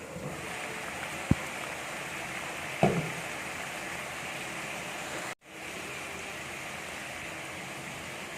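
Pot of liquid boiling on the stove, a steady bubbling hiss, with a sharp knock of a utensil against the pot about a second in and a louder clunk about three seconds in.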